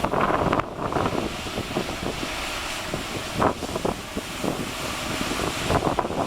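Strong wind buffeting the microphone over the steady noise of rough surf, with heavier gusts just after the start and about three and a half seconds in.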